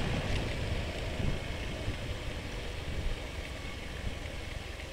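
Honda BeAT automatic scooter being ridden along a road: a low, steady engine hum mixed with wind rumble on the helmet-mounted microphone.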